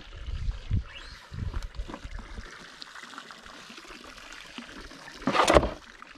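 Water sloshing and lapping against a boat's hull in low, irregular rumbles, with one louder splash about five seconds in.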